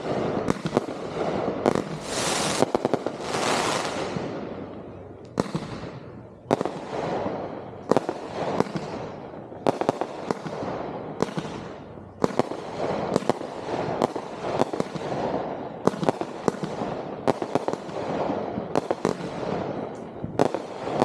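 Consumer 1.4G aerial fireworks going off in quick succession: a continuous run of sharp bangs, roughly one or two a second, each trailing off. A loud hiss rises and fades about two to four seconds in.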